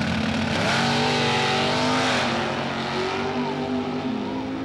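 Two drag-racing cars, a Chevrolet Camaro among them, launch off the starting line at full throttle about half a second in. Their engines rise sharply in pitch, then dip and climb again as they run away down the strip.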